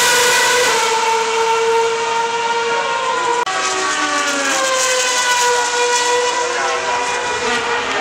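2013 Formula 1 car's 2.4-litre naturally aspirated V8 screaming at high revs as it runs down the straight, its pitch sagging slowly as it pulls away. About three and a half seconds in the sound breaks off for an instant, then high engine notes go on, rising and falling as other cars rev and change gear around the circuit.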